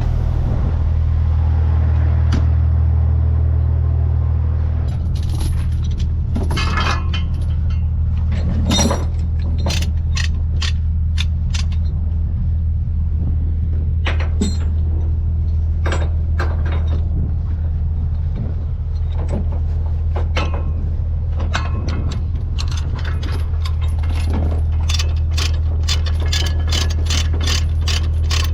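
Peterbilt 379 semi truck's diesel engine idling steadily under scattered metallic clinks and clanks. Near the end comes a fast, regular run of ratchet clicks as the load's tie-downs are tightened.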